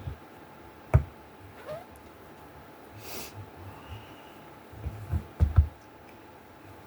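Several dull knocks: one about a second in and a quick cluster of three near the end, with a short hiss about three seconds in.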